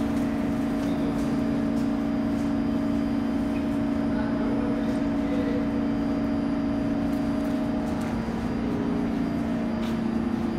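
New York City subway train standing at the platform, giving a steady electrical hum made of two low tones close together and a fainter higher tone. The higher tone fades away about eight seconds in.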